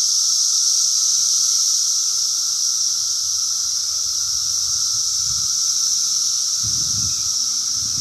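A mass chorus of cicadas singing in the trees: one steady, high-pitched drone with a weaker, lower tone beneath it. Faint low rumbles come in during the last few seconds.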